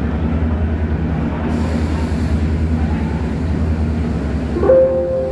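DEMU train's diesel engine running with a steady low hum as the train rolls slowly along the platform. A short pitched squeal stands out near the end.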